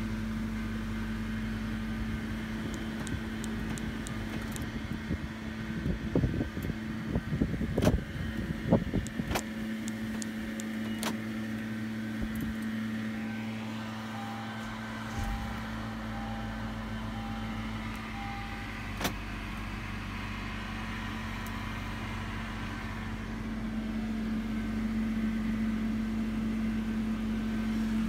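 Honda Accord engine running at idle after a remote start, a steady hum. A cluster of clicks and knocks comes about six to nine seconds in, and a run of evenly spaced beeps follows from about fifteen to twenty seconds in.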